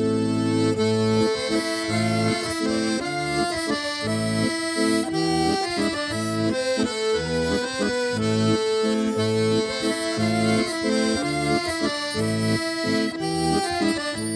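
Live instrumental folk music: a tune played over rhythmic, pulsing bass chords, with no singing.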